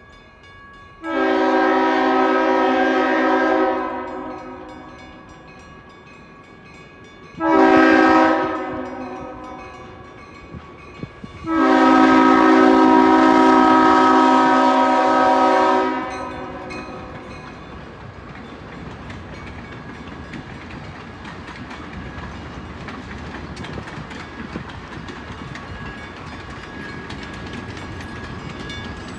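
Diesel locomotive air horn, the Santa Fe CF-7 leading the train, sounding for a grade crossing: a long blast, a short one and another long one, each a chord of several tones. Then the locomotive and passenger cars roll past with a steady rumble of wheels on rail.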